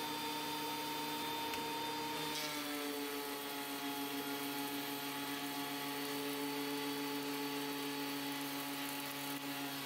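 Dewalt DW734 benchtop thickness planer running with a steady whine; about two and a half seconds in its pitch drops as an ash board enters the cutterhead, and it keeps running under load while the board is planed.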